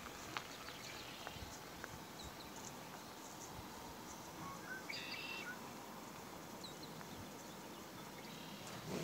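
Birds chirping faintly: a few short, scattered chirps and one brief call about five seconds in, over a steady quiet background.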